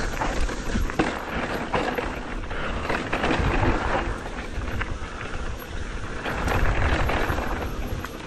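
Mountain bike noise on a dirt trail: a continuous rumble with rattles and scattered knocks.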